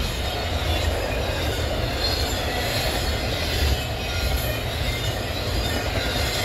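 Intermodal freight train's well cars, loaded with trailers and stacked containers, rolling past: a steady noise of steel wheels on the rails.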